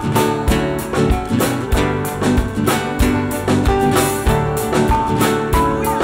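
Live band music: a drum kit keeps a steady, fast beat under guitar and other sustained instrument notes.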